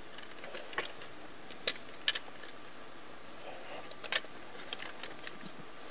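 Scattered light clicks and small taps of engine parts and bolts being handled and fitted by hand in an engine bay, with a few sharper clicks about two seconds in and again around four seconds in.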